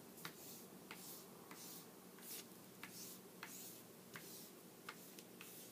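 Oil pastel rubbed in short, quick strokes across book paper: faint scratchy strokes about two a second.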